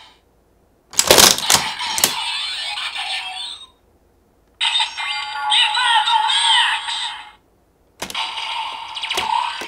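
DX Revice Driver toy belt with the Giffard Rex Vistamp playing its electronic transformation sequence: sound effects, music and a synthesized voice in three bursts separated by short silences, with sharp hits at the start of the first and last. The voice announces "Ultimate Vice".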